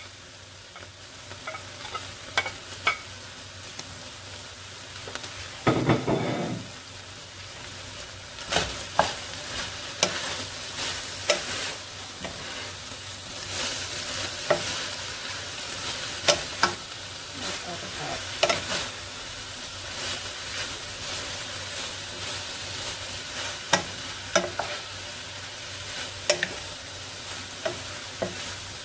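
Sliced vegetables and meat sizzling as they fry in a stainless steel pot, while a wooden spoon stirs them and knocks against the pot in frequent sharp clicks. About six seconds in there is a louder burst lasting about a second.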